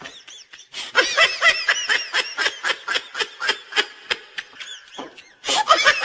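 High-pitched giggling: rapid bursts of laughter, several a second, breaking off briefly and starting again just before the end.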